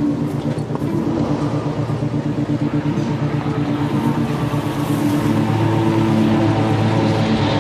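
A motor vehicle engine running steadily, getting a little louder about five seconds in.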